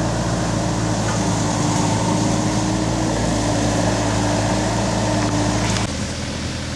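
Mini excavator's diesel engine running steadily at working speed as the bucket digs and dumps soil. About six seconds in, the sound drops abruptly to a quieter, lower engine note.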